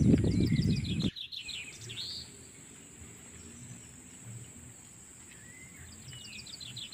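A bird singing twice: each time a quick run of short high notes followed by a single swooping note, over a steady high drone of insects. For about the first second there are loud low thuds, which stop abruptly.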